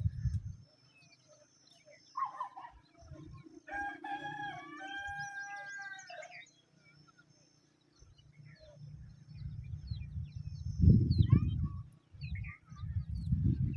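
A rooster crows once, starting about four seconds in, in one long call of about three seconds. Short bird chirps come and go around it, and low rumbling noise on the microphone grows loud in the second half.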